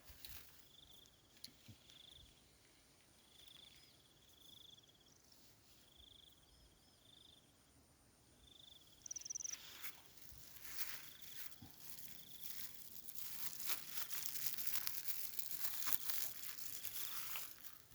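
Short high chirps from an insect repeat steadily over a quiet background; from about halfway a crackling, rustling noise with many small sharp ticks sets in and grows louder toward the end.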